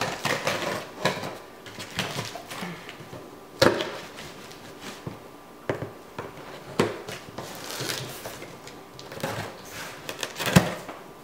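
A knife slicing and scraping through packing tape on a cardboard box, with cardboard rustling and a few sharp knocks against the box.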